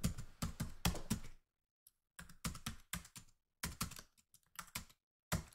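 Computer keyboard typing: quick key clicks in bursts separated by short pauses, then one last single click near the end.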